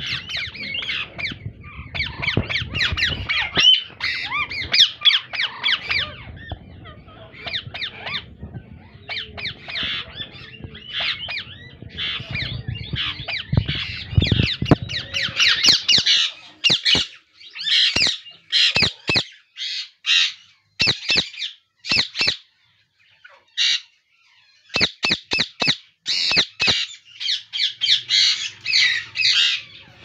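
Indian ringneck parakeets squawking. For the first half it is a dense run of rapid calls from chicks in a nest box over a low rumble. From about halfway it turns into separate short squawks, one after another with brief gaps, from adult ringnecks in a cage.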